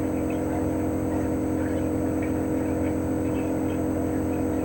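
CHOFU AE-2844PX air conditioner outdoor unit running in cooling mode: its GMCC single-rotary inverter compressor gives a steady hum with several fixed tones, and a faint high whine sits above it.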